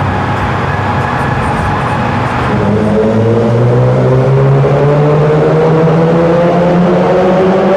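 Volkswagen Corrado engine holding a steady note. After about two and a half seconds it gets louder and climbs slowly in pitch as the car accelerates under load.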